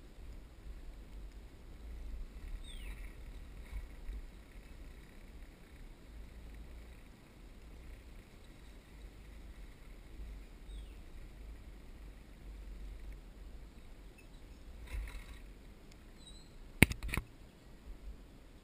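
Low rumble of a zipline ride, wind buffeting and the trolley running along the cable, with two or three sharp clicks near the end, the loudest sounds.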